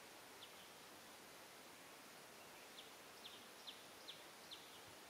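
Near silence: a faint steady hiss with a few short, faint high-pitched chirps, one near the start and then a quick run of about five, some two a second, in the second half.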